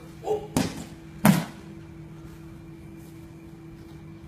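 Two heavy thuds of bodies hitting the training mats, about 0.7 s apart in the first second and a half, as partners are thrown and take breakfalls; then only a steady low hum.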